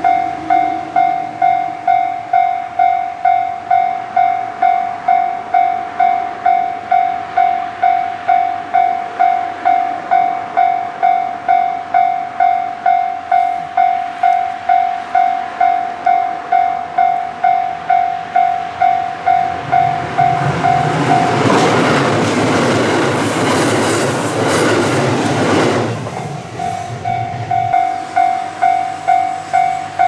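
Japanese level-crossing warning bell ringing, a steady repeated electronic ding about one and a half strikes a second. About twenty seconds in a train passes over the crossing; its wheel and rail noise swells and drowns the bell for about five seconds, then the bell is heard again.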